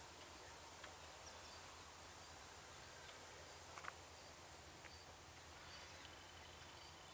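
Near silence: faint field ambience with scattered short, high chirps and a small click a little before the middle. About six seconds in, a thin, steady high tone begins.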